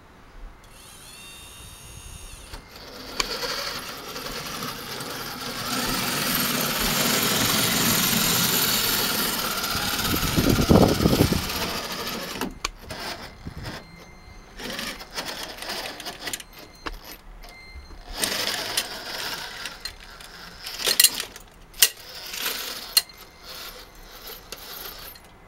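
Small electric gear motors of a radio-controlled Tonka Cranemaster model excavator whirring as it works. The motors run in stop-start bursts in the second half, with clicks and clattering as the model moves.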